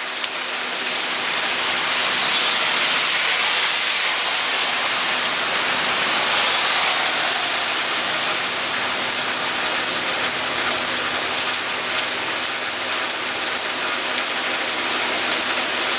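Rain falling steadily: a loud, even hiss that builds over the first couple of seconds and then holds.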